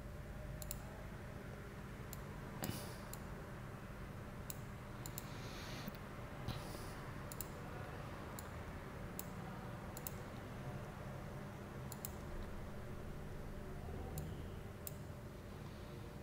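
Computer mouse clicking: faint, sharp, irregular clicks about once a second, over a steady low room hum.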